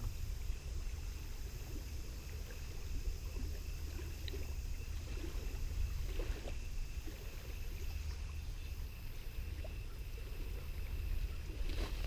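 Wind buffeting a GoPro's microphone: a steady low rumble with no other clear sound above it.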